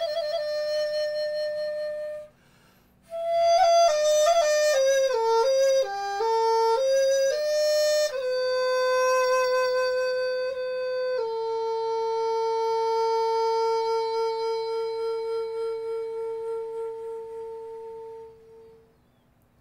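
A solo wind instrument playing a slow melody. A held note stops about two seconds in, and after a short pause comes a quick run of notes, then two long held notes, the last one fading away near the end.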